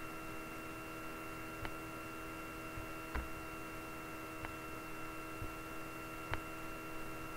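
Steady electrical hum with a few fixed tones, with about four sharp clicks of a computer mouse spread through it as slides are paged.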